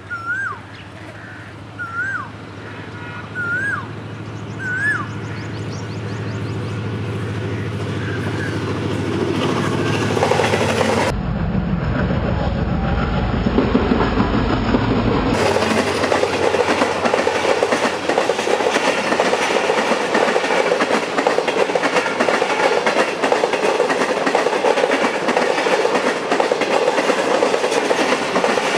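Asian koel calling a rising whistled note about four times, one every second and a half or so. A Pakistan Railways ZCU-class diesel-electric locomotive then approaches and passes with a deep rumble, followed by its coaches rattling and clattering over the rail joints.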